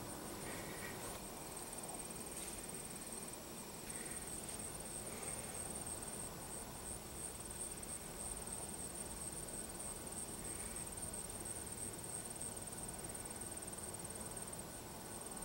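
Faint hum of honey bees flying in and out of busy hive entrances during a strong goldenrod nectar flow, under a steady, high-pitched pulsing trill of field insects.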